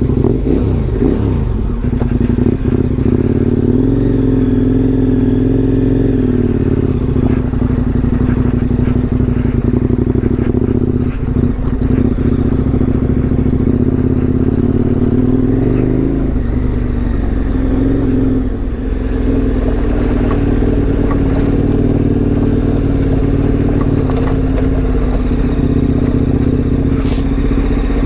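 KTM 1090 Adventure R's V-twin engine running as the motorcycle is ridden off. The pitch rises and falls with the throttle, with a dip and a climb back about sixteen seconds in.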